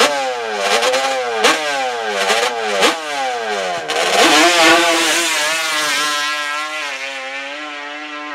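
Small drag-racing trike engine revving in quick blips, about one a second, as the rear slick smokes in a burnout, then held at high revs as the trike launches and pulls away, the note steadying and fading.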